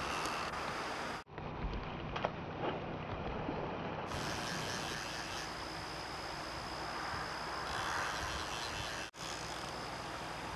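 Steady rushing outdoor noise of a flowing river and wind on the microphone. It cuts out briefly twice, and there are a few faint clicks about two seconds in.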